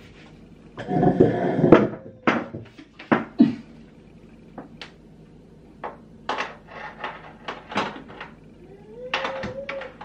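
Clatter and knocks of a kitchen wall cabinet's parts being handled and fitted into place. A loud rattling scrape comes about a second in, then a run of sharp, separate knocks. A short wavering tone is heard near the end.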